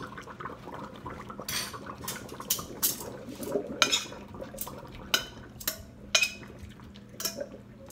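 Stainless steel pot and a metal utensil clinking and scraping against a metal colander in a steel sink, about a dozen sharp clinks with a short ring, as the last of the boiled greens are emptied out of the pot.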